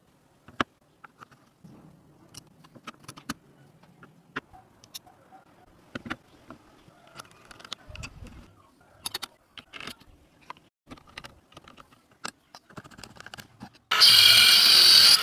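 Scattered clicks and knocks of parts being handled and fitted together. About 14 seconds in, a loud steady running starts abruptly: the homemade PVC mini miter saw switched on, its 12-volt 775 DC motor spinning the blade through a GT2 belt.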